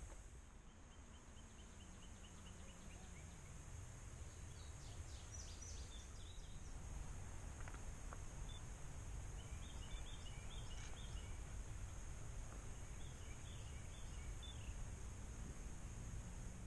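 Outdoor ambience: wind rumbling on the microphone, with a steady high hiss and birds calling. Near the start a bird gives a run of about ten quick repeated notes, followed later by scattered chirps and short clusters of calls.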